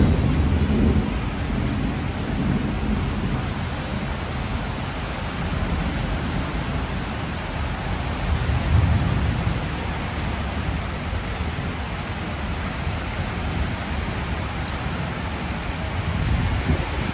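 Heavy thunderstorm rain falling steadily on trees and a corrugated metal roof. A low rumble of thunder at the start fades over the first couple of seconds, and a weaker rumble swells about nine seconds in.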